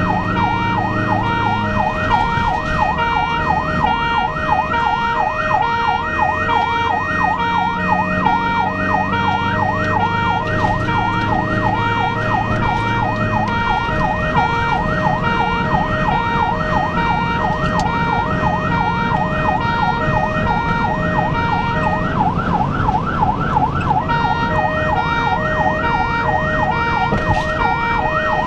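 Ambulance's electronic siren in a fast yelp, its pitch sweeping up and down several times a second, heard from inside the cab of the moving ambulance. A steady high tone runs alongside it and drops out briefly near the end, over engine and road noise.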